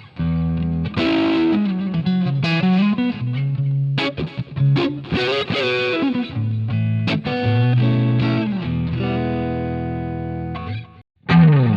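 Overdriven electric guitar riff through a Line 6 amp modeller's Plexi-style crunch preset: single notes with bends and slides, then a chord left to ring and fade, a brief stop, and the riff starting again near the end.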